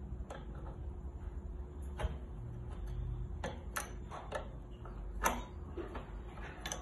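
Irregular light metal clicks and taps of an adjustable wrench working the small nuts on an air compressor's cylinder head as they are tightened; the loudest click comes about five seconds in.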